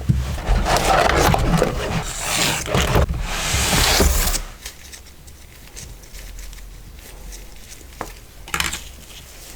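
Box and packaging being handled: scraping and rustling for about four seconds, then quieter handling with a single click and a short rustle near the end.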